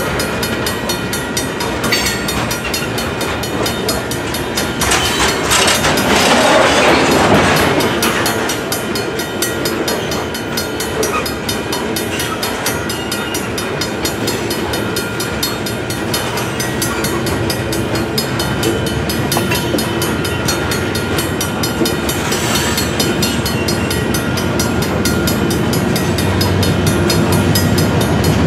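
Freight train of covered hopper cars rolling past at close range: steady wheel-on-rail rumble with occasional clicks of wheels over rail joints, growing louder for a couple of seconds about six seconds in.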